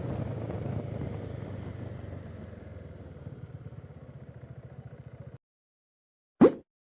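Voge SR4 Max scooter's single-cylinder engine running while riding, with wind hiss, fading out over about five seconds and then cutting off. About a second later comes a short, loud rising swoosh.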